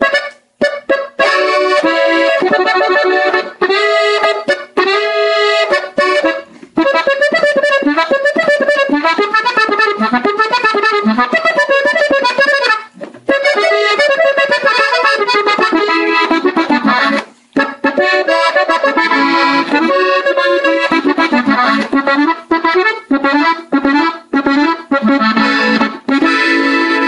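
Gabbanelli button accordion tuned in E, played in the violin register: a norteño tune in the key of A at normal tempo, in quick runs of notes over a steady bass, with a few brief breaks.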